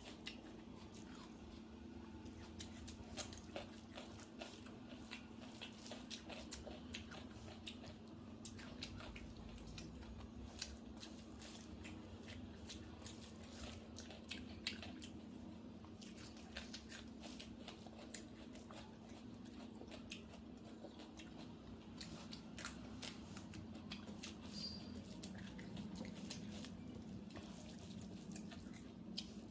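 Close-up eating sounds of a person chewing a meal of rice and curry, with many small irregular wet clicks and smacks. A low steady hum runs underneath.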